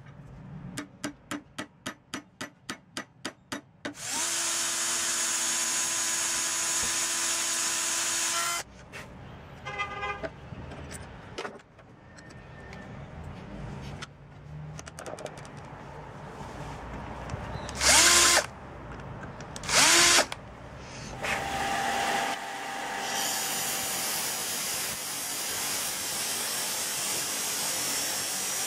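A quick run of about ten clicks, then a power drill runs steadily for about four seconds, drilling a pin hole through the padauk handle scales and steel tang. Two short loud bursts come about 18 and 20 seconds in, and in the last several seconds a disc sander runs steadily, grinding the pinned wooden handle.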